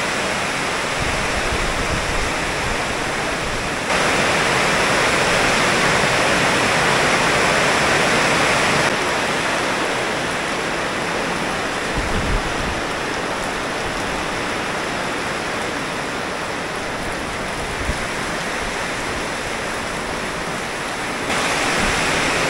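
Heavy rain downpour: a steady, dense hiss of rain, louder for a few seconds about four seconds in and again near the end.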